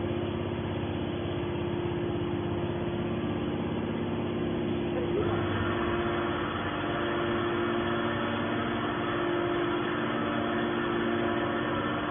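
Hydraulic can baler's motor and pump running with a steady hum. About five seconds in, a higher hissing layer joins and carries on.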